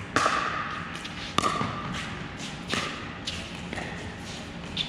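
Pickleball paddles hitting a plastic pickleball back and forth in a rally: a series of sharp pops about a second or so apart, each followed by a short echo.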